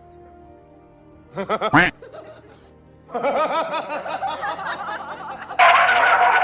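Laughter over background music: a short loud burst of laughing about a second and a half in, then a longer run of laughing from about three seconds that is loudest near the end.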